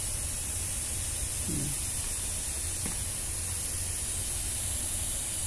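Steady hiss with a low hum underneath and no distinct event, apart from a faint short click about three seconds in.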